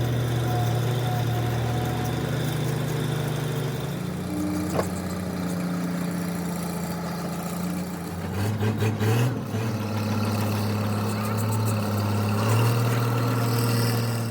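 Road roller's diesel engine running at a steady idle. Its speed shifts a few times: higher about four seconds in, uneven surges around the middle, and up again near the end.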